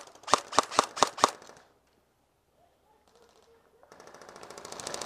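Airsoft gun firing a rapid string of shots, about five a second, each with a short ping; the string stops about a second and a half in. Near the end a faster, fainter rattle of airsoft fire builds up.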